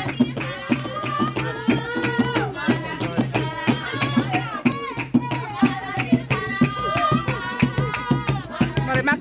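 Voices singing over a quick, steady rhythm of hand drums.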